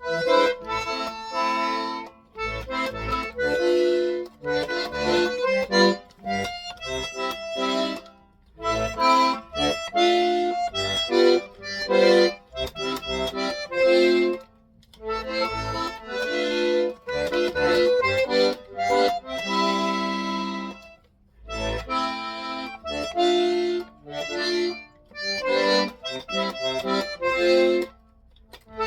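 A solo instrument, by its sound an accordion, playing a tune in chords, phrase by phrase with short pauses between phrases, as someone practises a piece they are learning.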